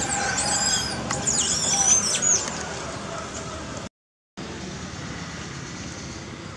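High-pitched chirping calls that sweep quickly up and down, over a steady outdoor background, fading out after about two and a half seconds; the sound cuts out completely for a moment about four seconds in, leaving only the steady background.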